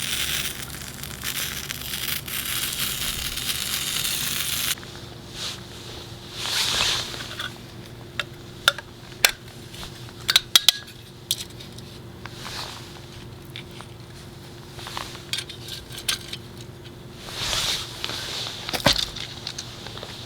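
Food-preparation handling sounds: a dense crackling hiss for the first few seconds that cuts off suddenly, then scattered sharp clicks and clinks of utensils and dishes with soft rustles between.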